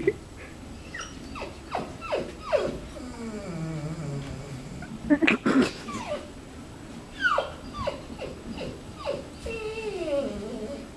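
Black Labrador retriever whining and whimpering over and over, high cries that mostly slide down in pitch, with a louder pair about five seconds in: the dog is pleading to get to its owner on the other side of the stall door.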